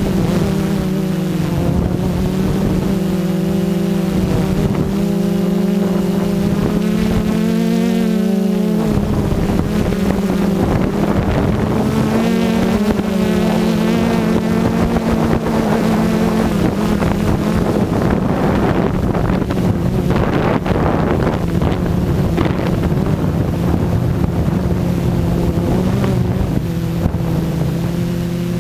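Quadcopter's electric motors and propellers running in flight, heard from the camera mounted on the craft. The pitch keeps rising and falling with the throttle, over a haze of wind and prop-wash noise.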